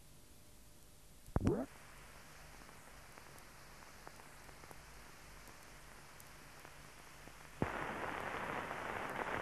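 Faint transfer hiss, broken about a second and a half in by a short, loud, low pop with a wavering tone. About three quarters through, a click starts a louder, steady hiss: the surface noise of an old film soundtrack.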